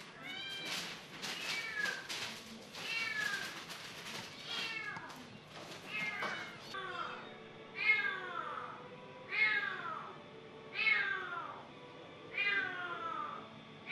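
Cats meowing repeatedly, each call falling in pitch: several calls overlap at first, then about halfway through a single insistent call comes roughly every second and a half.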